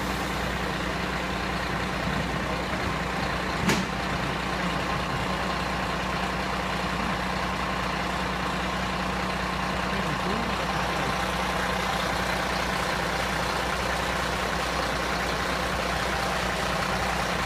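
Mercedes-Benz fire engine's diesel engine idling, a steady drone with hiss. A single sharp click comes about four seconds in.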